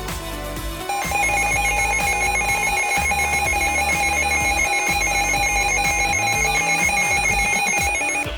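Emergency alert tone: a loud, rapid, trilling electronic alarm that starts about a second in and stops just before the end, over background music.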